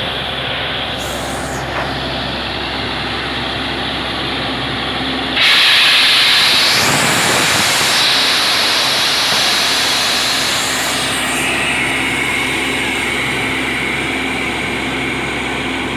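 Truck-mounted borewell drilling rig running steadily, its engine and air compressor under load. About five seconds in, a loud rush of compressed air hisses out of the bore. It is strongest for the first couple of seconds, then settles to a steady hiss over the engine.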